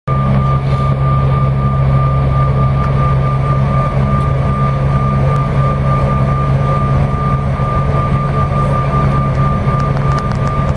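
Cabin noise of a Bombardier CRJ-900 regional jet taxiing: a steady low engine hum with a constant high whine from its rear-mounted GE CF34 turbofans at low power.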